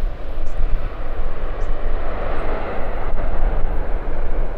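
Jet noise from an Airbus A321neo's CFM LEAP-1A turbofans as the airliner lands: a loud, steady rumbling roar that swells about halfway through.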